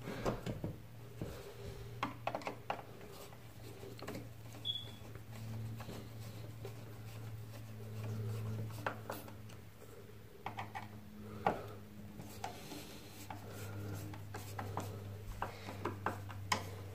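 Small clicks, scrapes and rubs of a screwdriver turning the fixing screws and hands pressing a polished chrome flat socket faceplate against the wall, over a low steady hum.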